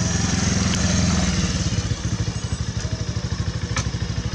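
Motorcycle engine running at low revs as the bike rolls up and stops. From about two seconds in, its exhaust beat becomes an even pulsing throb.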